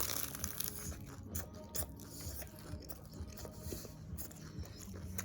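Biting into and chewing a crisp egg roll, with irregular crunches close to the microphone.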